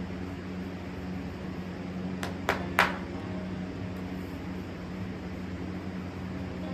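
Electric barn fans humming steadily. Three quick, sharp knocks come about two and a half seconds in, the last one the loudest.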